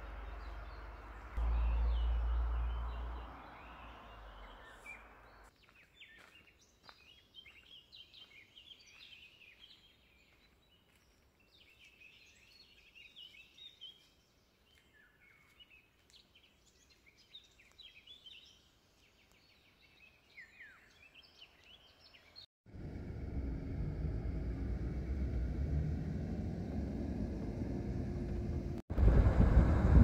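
Small birds chirping and singing in woodland, short high calls scattered over a quiet background, after a few seconds of low rumble. A little past twenty seconds in it cuts to the steady road noise of a moving car.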